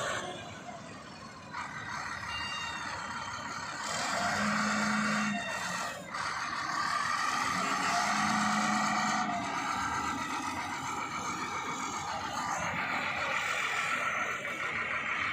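XCMG wheel loader's diesel engine running as the machine works its bucket at a dirt pile, the engine note swelling about four seconds in and again a couple of seconds later.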